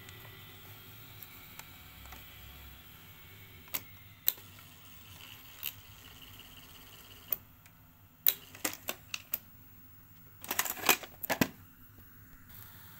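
Mechanical clicks and clacks from the front-panel keys and tape mechanism of an opened National NV-7500 VCR being worked by hand. They come singly at first, then in a quick run, and then as a dense clatter a little past halfway.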